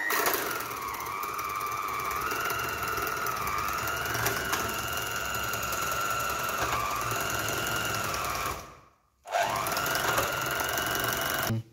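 Electric hand mixer running with a steady whine as its beaters cream butter and sugar in a steel bowl, the pitch wavering up and down. It stops briefly about nine seconds in, then starts again and climbs back up to speed.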